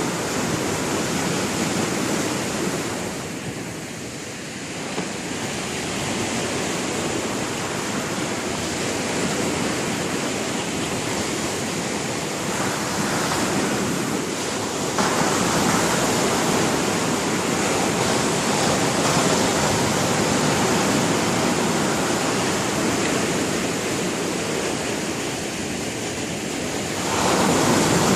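Sea waves breaking and washing on the shore in a continuous rush that swells and eases, stepping up suddenly to a louder surge about halfway through and again near the end.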